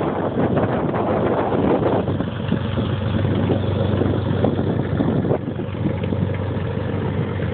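Cirrus SR22's six-cylinder piston engine and propeller running at low taxi power as the plane taxis past, the sound easing off a little after about five seconds as it moves away.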